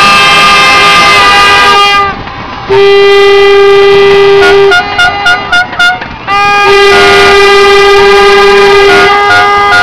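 Several boat horns sounding together at different pitches in long, overlapping blasts, with a run of about six short toots in the middle: a harbour horn salute.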